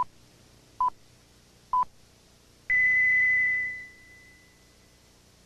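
Electronic countdown signal: three short beeps, then a longer, higher beep that fades away, the start cue for a stopwatch timing.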